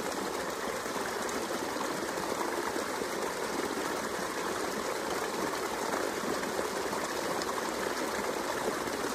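Creek water flowing steadily over a series of small rock cascades.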